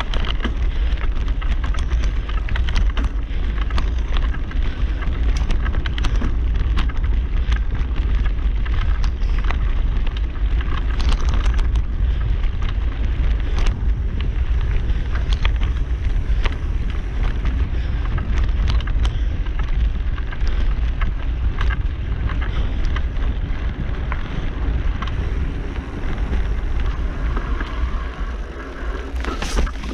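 Mountain bike being ridden on a dirt trail: a steady low wind rumble on the microphone over tyre noise, with frequent short clicks and knocks as the bike rattles over bumps.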